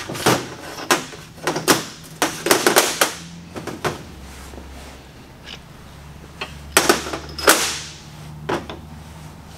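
Metal engine main bearing caps clacking and scraping as they are set down one by one on a stainless-steel table: a quick run of sharp clacks in the first three seconds, then a few more around the seven-second mark.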